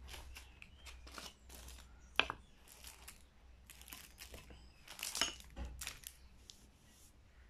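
Clear plastic packaging around kitchen utensils crinkling and rustling as they are handled and set down on a wooden slicer, with a sharp click about two seconds in and a louder stretch of rustling around five seconds.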